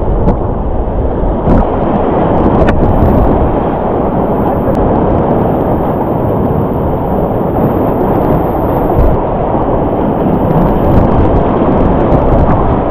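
Loud, steady, deep rush of whitewater rapids, with a couple of light knocks.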